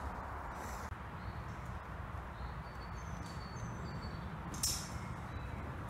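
Woodland ambience: a steady low background rush, with a few faint, short high bird chirps in the second half. A brief rustle comes about three-quarters of the way through.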